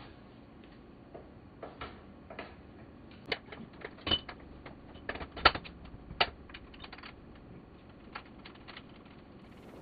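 Irregular metallic clicks, clinks and light knocks as the rear wheel is fitted into a homemade trials motorcycle's frame, the sharpest knocks about four to six seconds in.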